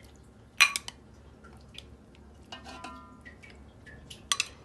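A spoon clinking against a metal cooking pot and a glass bowl while coloured yogurt is spooned and poured over chicken. A sharp clink comes about half a second in, a brief ringing scrape midway, and a quick run of clinks near the end, with soft wet drips and ticks between.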